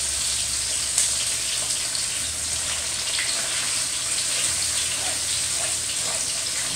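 Steady sizzle of food frying in pans on a gas stove, with scattered small crackles and one sharper click about a second in, as a wooden spoon stirs a tomato sauce.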